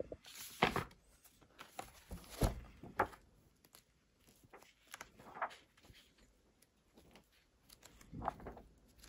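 Pages of a large-format book being turned by hand: paper rustling and flapping in short, uneven bursts, the sharpest about two and a half seconds in.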